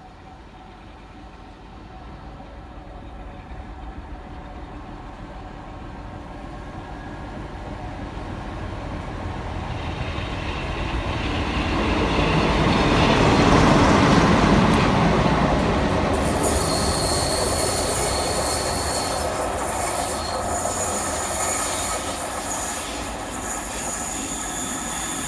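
British Rail Class 47 diesel locomotive running light engine through a station, its Sulzer twin-bank diesel engine and wheels growing louder as it approaches. It is loudest as it passes about halfway through, then draws away. Shortly after it passes there is a thin high squeal from the wheels on the rails.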